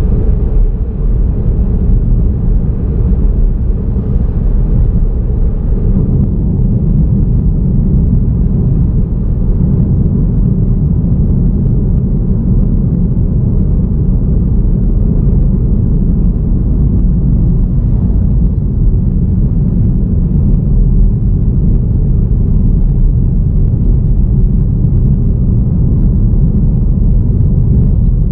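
Car driving at steady speed: a constant low rumble of road and engine noise, growing a little heavier about six seconds in.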